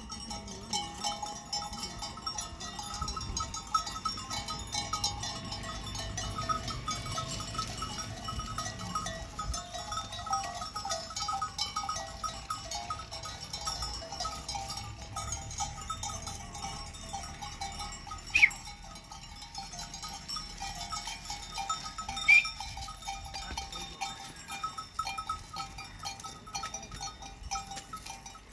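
Livestock bells on a walking flock of sheep and goats, jingling continuously. Two brief, loud, high cries stand out about two-thirds of the way through, some four seconds apart.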